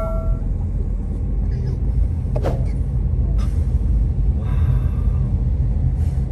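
Steady low rumble of a car driving on a wet road, heard from inside the cabin, with a single knock about two and a half seconds in.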